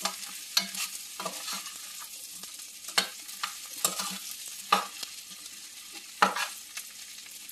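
Chicken feet frying with garlic in a stainless steel pan, a steady sizzle, while a metal spoon stirs them, clinking and scraping sharply against the pan several times.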